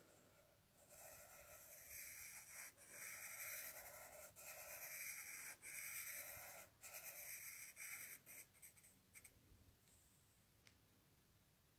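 Pencil scratching on paper in a series of short drawing strokes, stopping about eight and a half seconds in.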